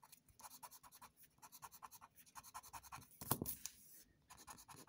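Scratch-off lottery ticket being rubbed with a small scraper: a fast run of quick, faint scraping strokes across the card's coating, with one louder stroke a little past halfway.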